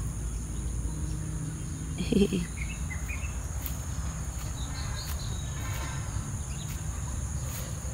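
Steady high-pitched insect chorus, like crickets shrilling, over a low outdoor rumble, with a short vocal sound about two seconds in.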